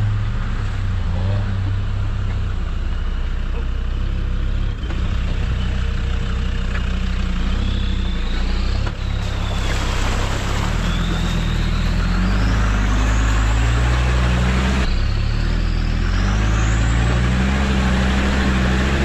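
Land Rover Discovery Td5's five-cylinder turbodiesel engine running under load off road, its pitch rising and falling as the driver works the throttle. From about halfway through, the tyres splash through water in a stream bed.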